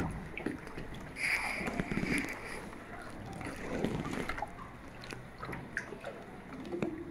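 Kayak paddle strokes in calm water: irregular sloshing, swishing and small splashes as the blade dips and pulls, with water lapping at the hull.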